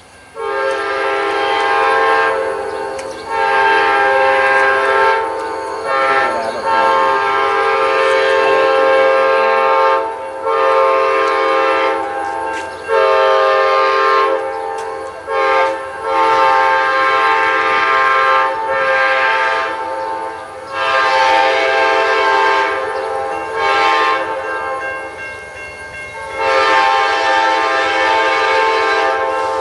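Locomotive air horn sounding a chord in a long series of blasts with short breaks between them, starting about half a second in.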